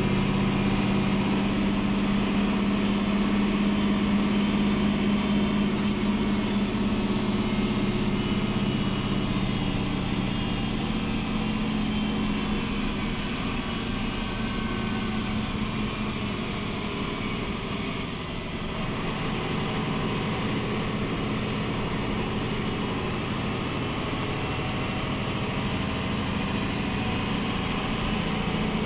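MAN NL263 low-floor city bus on the move, heard from inside the passenger cabin: its rear-mounted MAN D2866 six-cylinder diesel running steadily under way. The engine note eases off in the middle and picks up again near the end.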